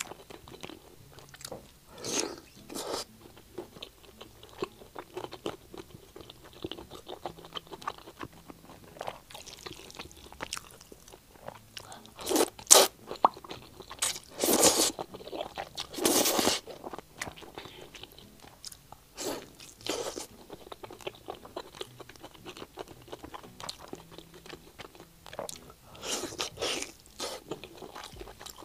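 Close-miked eating: chewing and biting of braised pork belly with many short wet mouth clicks, and a few longer, louder slurps of rice noodles near the middle.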